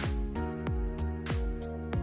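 Background music with a steady beat: held chords over a regular kick drum.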